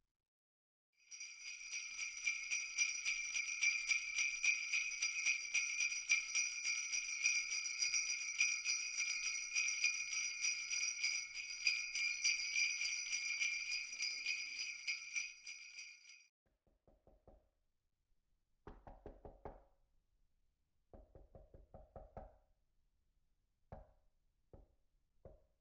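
Jingle bells shaken rapidly and continuously for about fifteen seconds, a bright metallic ringing, which then stops. Short, quiet groups of light taps or knocks follow near the end.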